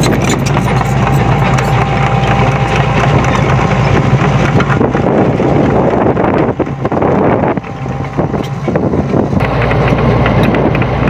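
SANY SY75C mini excavator's diesel engine running steadily, with scattered clanks and rattles of the machine working gravel. The engine note drops for a few seconds past the middle, then picks up again.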